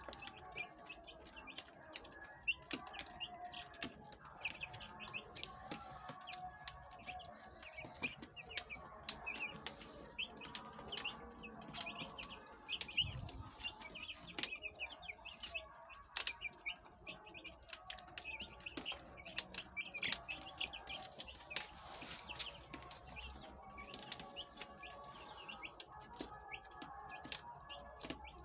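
A flock of young broiler chicks peeping constantly: many short, high chirps overlapping several times a second, with scattered light clicks.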